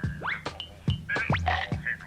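Upbeat electronic music with a steady drum beat and bass, and quick rising swooping sounds.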